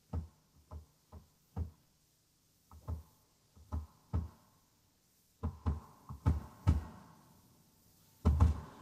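A quiet break in a 1971 rock recording: soft, single percussion hits, about fifteen of them, irregularly spaced, with a swell building near the end.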